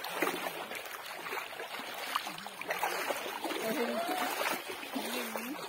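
Bare feet splashing through shallow river water as a child wades across, with faint voices now and then.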